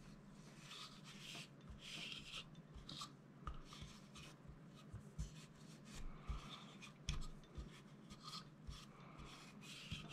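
Faint scrubbing of a cotton cleaning patch rubbed back and forth over the polymer frame of a Springfield XD(m) 9mm pistol, with a few light knocks as the frame is handled.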